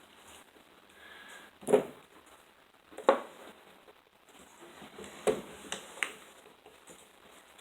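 A few sharp clicks and knocks, spaced out irregularly, from a plastic 12-gauge shotshell being handled and cut open with a blade; the loudest comes about three seconds in.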